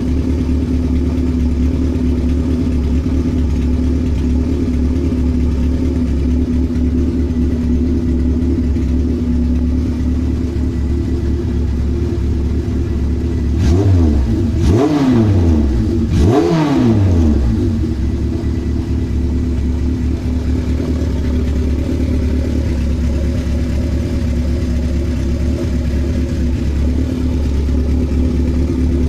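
1976 Kawasaki KZ900's air-cooled inline-four engine idling steadily, blipped twice in quick succession about halfway through, each rev rising and falling straight back to idle.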